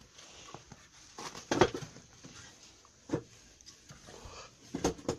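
A few scattered knocks and thuds, the loudest about one and a half seconds in, with faint movement noise in between.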